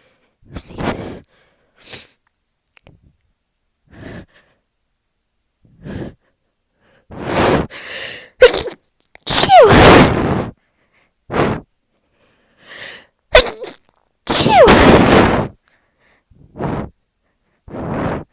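A person sneezing twice, each loud sneeze coming after short gasping in-breaths. The first sneeze is about halfway through and the second about five seconds later, with quieter breaths and sniffs between.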